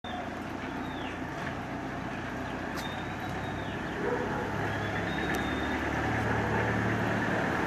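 Engines of a small Peugeot van and a minibus running as they drive slowly over a cobblestone street, with tyre noise. It grows louder about four seconds in as the van comes close.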